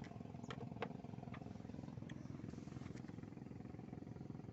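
A small engine running steadily at an even speed, with a few light clicks in the first second and a half.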